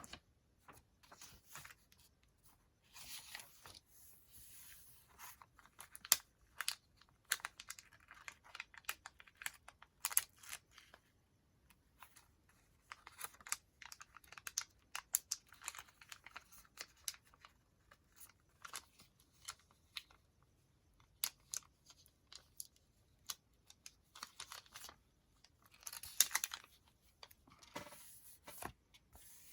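Paper being handled: journal pages and sticker sheets rustling and crinkling, with many small scattered clicks and taps. Short bursts of tearing or peeling come about three seconds in, around the middle and near the end.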